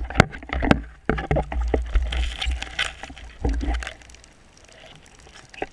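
Water sloshing with sharp knocks and clicks from handling a speared fish and spear during a night spearfishing dive. A low rumble goes quiet just before four seconds in, and one more click comes near the end.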